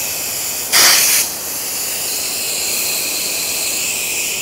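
Pressure-washer wand spraying with a steady high hiss, with a brief louder burst of spray about a second in.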